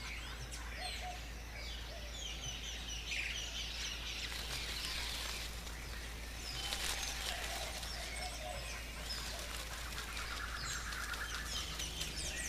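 Many small birds chirping and twittering in a steady natural ambience, with short high calls overlapping throughout, over a faint low hum.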